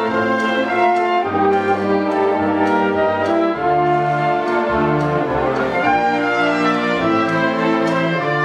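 Symphony orchestra playing slow, sustained chords that change every second or so, with bowed strings.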